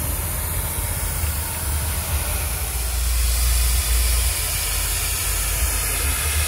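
Steady hiss of air escaping from an off-road boat-trailer tyre's valve as the tyre is let down, lowering its pressure for driving on sand. A low engine rumble runs underneath.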